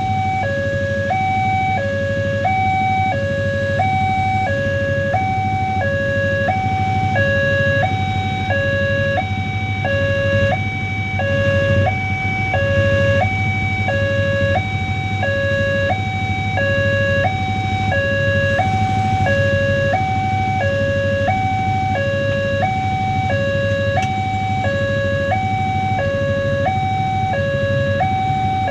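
Railway level-crossing warning alarm sounding from the signal post's loudspeaker: an electronic two-tone chime alternating high and low without a break, warning that a train is crossing. Under it is a steady low rumble from the coal train's wagons passing.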